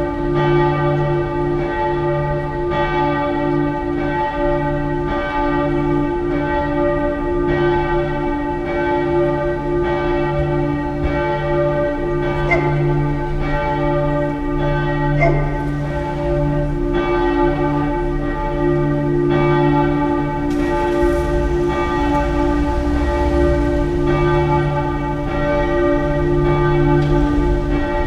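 The full peal of the Dresden Frauenkirche's church bells: several swinging bells ringing together in a steady stream of overlapping strikes, their tones hanging on between strokes.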